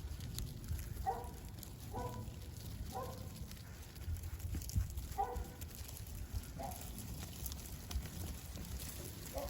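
An animal calling in six short, pitched calls spaced one to three seconds apart, over a low rumble.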